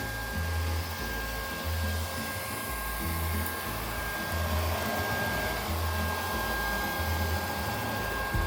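Robot vacuum cleaner running: a steady motor whir with a constant high whine.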